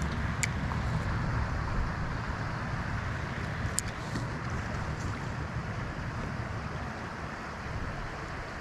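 Steady rush of flowing creek water, with low wind rumble on the microphone. Two faint ticks, one about half a second in and one near four seconds.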